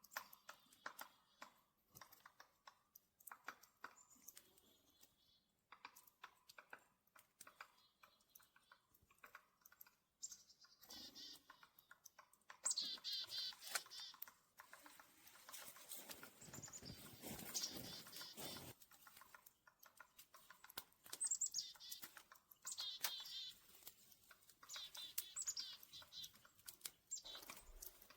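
Small songbirds chirping in short bursts, several times in the second half, over a run of faint clicks and crackles, with a denser stretch of crackling about two-thirds through.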